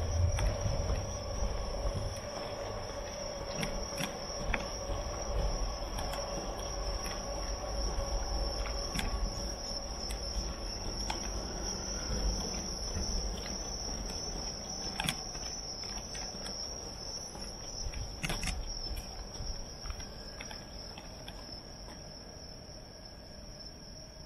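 Insects singing in one steady, unbroken high trill over a low rumble, with a few scattered clicks.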